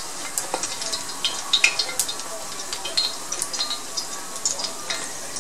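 Fish cakes frying in hot oil in a cast-iron skillet: a steady sizzle dotted with frequent sharp crackles and pops.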